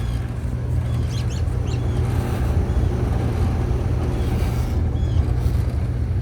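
Outdoor heat pump unit running in heat mode with its coil iced up: a steady low compressor and fan hum. A few short high chirps sound over it about a second in and again near the end.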